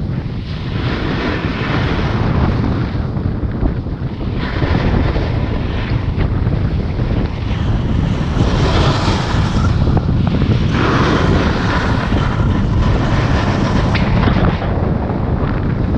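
Wind rushing over an action camera's microphone while snowboarding downhill, a heavy steady rumble, with the hiss of the snowboard sliding and scraping over packed snow swelling louder a few times in the second half.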